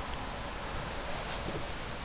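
Steady background hiss with a low rumble, and no distinct events.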